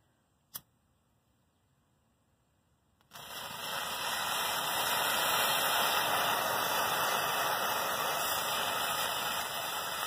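A lump of plasticized potassium chlorate and sugar composition catches about three seconds in and burns with a steady hiss for about seven seconds, easing off near the end. A single click sounds about half a second in.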